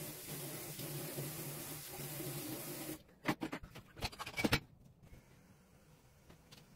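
Faint kitchen room tone, a steady low hum with hiss, that drops away about three seconds in. It gives way to a few light clicks and clatters from about three to four and a half seconds in, as a dishwasher door is opened and its rack handled.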